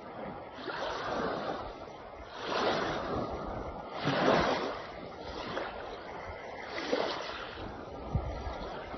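Water washing in repeated surges, each swelling and fading every second or two over a steady hiss, as small waves do on a shore.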